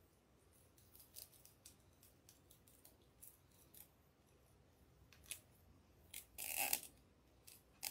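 Plastic zip tie being worked and pulled through its catch by hand. Faint scattered clicks and rustles come first, then a louder rasp of about half a second some six and a half seconds in, and a short click near the end.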